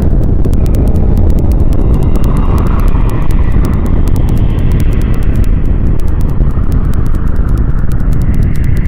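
Loud, steady deep rumble of an explosion-like space sound effect, with a fast crackle of sharp clicks over it.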